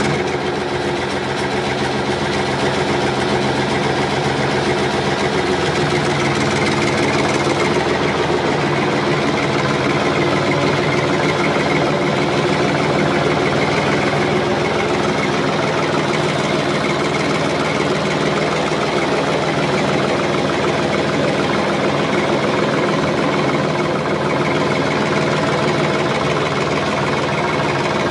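A heavy engine running steadily at an even speed, a continuous drone that does not change.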